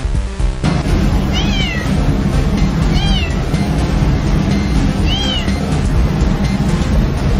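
A cat meowing three times, each a short call that rises and falls in pitch, over background music.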